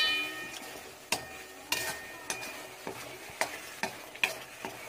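A spatula stirs masala paste frying in oil in a pan, knocking and scraping against the pan over a steady sizzle. It opens with a sharp ringing clink, then comes a knock every second or so.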